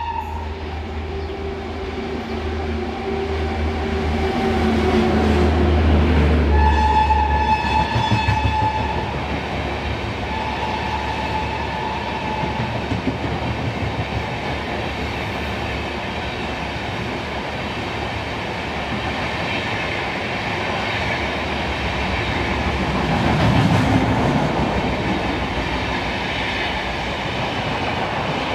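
Indian Railways express train running through a station at speed. A heavy rumble builds as the locomotive approaches, and its horn sounds about seven seconds in and again more weakly a few seconds later. Then comes the steady rumble and clatter of the coaches passing close by.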